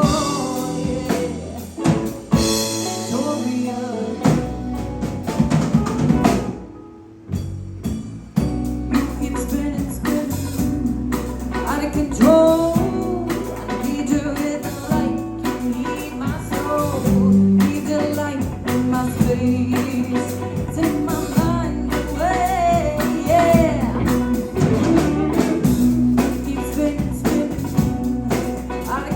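Live rock band playing: drum kit, electric guitars and bass under a sung lead vocal. The band drops out briefly about seven seconds in, then comes back in.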